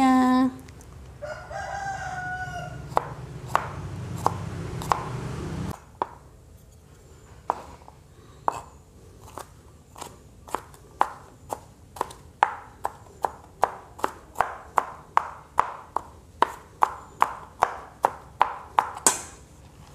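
Kitchen knife slicing garlic cloves on a cutting board: sharp taps, scattered at first, then quick and regular at about two to three a second from about ten seconds in. A rooster crows in the background during the first few seconds.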